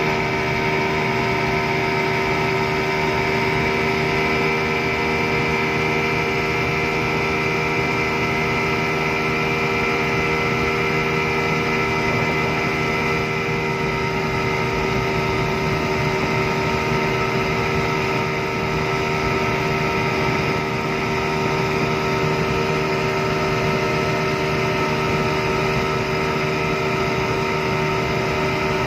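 Yamaha 200 hp two-stroke V6 outboard motor running flat out, holding an even, unchanging pitch throughout.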